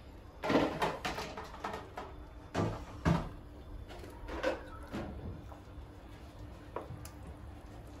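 Butter sizzling faintly in a nonstick frying pan, with several short knocks and clatters scattered through it.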